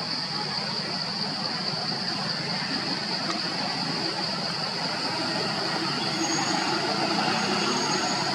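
Steady background noise: a low rumble under a constant high-pitched buzz, with a faint thin whistle-like tone twice near the end.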